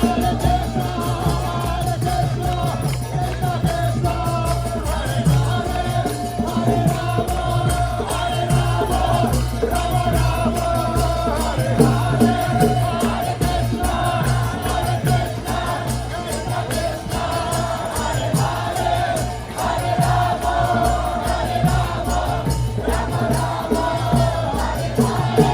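Background music track with a choir-like vocal sound, a steady low beat and a fast shaker-like ticking.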